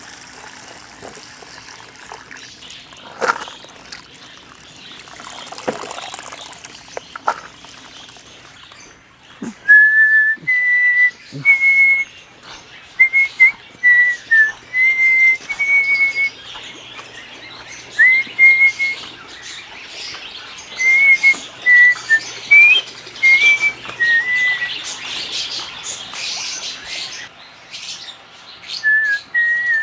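Faint trickling water, then a bird whistling a long run of short, clear notes about a second apart, each held briefly at a slightly different pitch. Shrill chirping from caged lovebirds thickens near the end.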